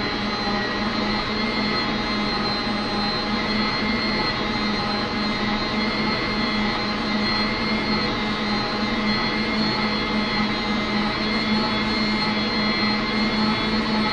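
Arno Planetária Essential stand mixer running steadily, its beaters whipping a milk-based ice cream mixture to build up its volume; an even motor hum and whir that does not change.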